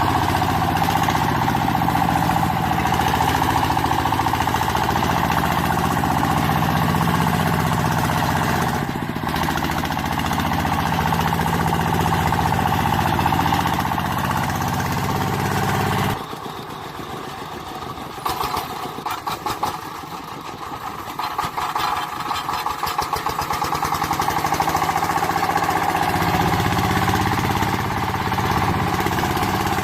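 A motor or engine sound runs steadily, like a small tractor. About halfway through, the deep hum drops away and the sound turns choppier and quieter, and the deep hum comes back near the end.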